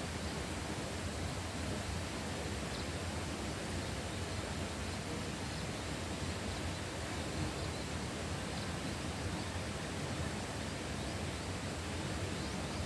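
Steady, even rushing hiss of countryside outdoor ambience, with a few faint short high chirps.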